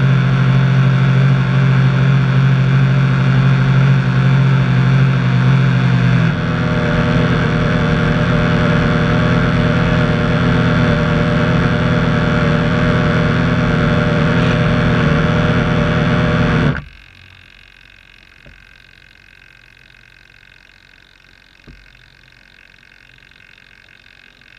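Dual brushed electric motors of an RC boat running steadily at speed, heard from a camera on the hull. About six seconds in the note drops lower and rougher, and some ten seconds later the motors cut off abruptly, leaving a faint hum and a couple of light taps.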